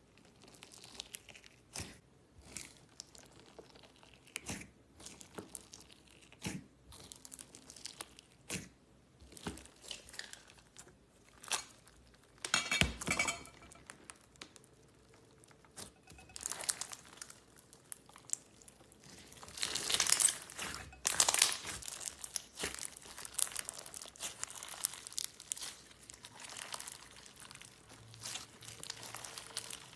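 Slime being handled by hand, giving irregular sharp clicks and pops, with denser, louder bursts about halfway through and again about two-thirds of the way in.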